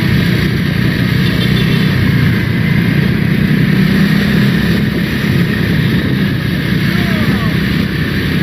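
Road vehicle engines running steadily, a low rumble with no horn playing.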